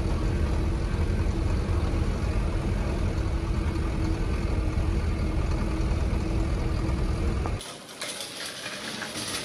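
A vehicle on the move, with steady engine and road noise and a steady hum. About seven and a half seconds in, the low rumble drops away abruptly, leaving a quieter hiss.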